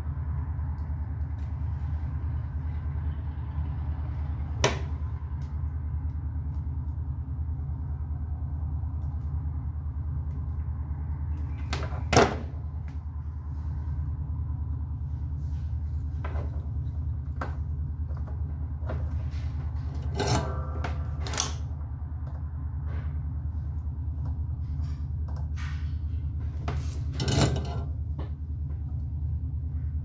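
Scattered light clicks and knocks from handling thin wires and a white plastic X-ray exposure handswitch on a wooden workbench, the loudest about twelve seconds in, over a steady low background hum.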